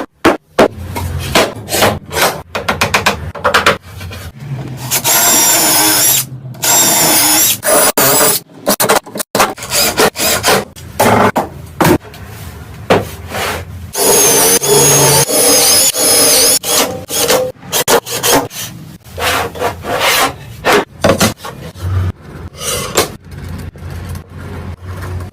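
Woodworking shop sounds in quick succession: many short knocks, taps and scrapes on wood, with a power tool running for a few seconds at a time, about five and about fourteen seconds in.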